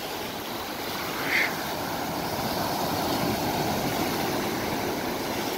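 Ocean surf breaking and washing up the beach, a steady rushing noise that swells a little mid-way, with one short high-pitched sound about a second and a half in.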